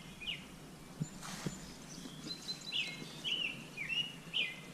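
A songbird singing a run of short, repeated chirping notes, with two faint clicks about a second in.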